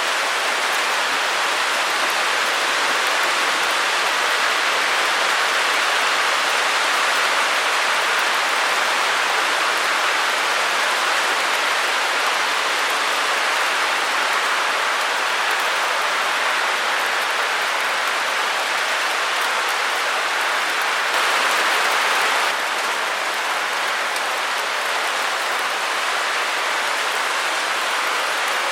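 Steady white-noise hiss, an even rushing sound without pitch, heaviest in the upper middle and thin in the bass. It swells slightly for a moment about 21 seconds in, then settles a little quieter.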